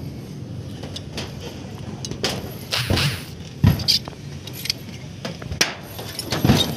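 Irregular knocks and dull thuds on sheet-metal roofing, like footsteps and handling on the roof panels. They come mostly from about two seconds in onward, with the loudest near the middle and near the end.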